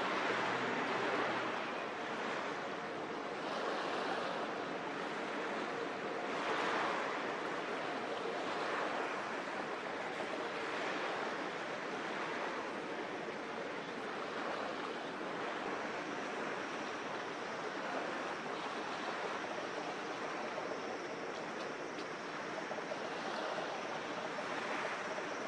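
Steady wash of harbour water and wind, swelling and fading every few seconds like small waves lapping.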